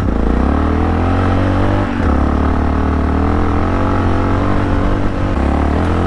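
Yamaha XT660R's 660 cc single-cylinder four-stroke engine pulling on the move, its pitch climbing, dipping briefly about two seconds in and climbing again.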